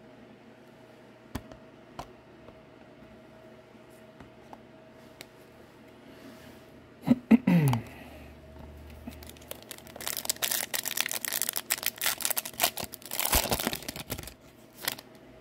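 A foil trading-card pack being torn open, its wrapper tearing and crinkling for about four seconds in the last third. Before that come a few light clicks and, about halfway in, a brief loud sound that drops in pitch.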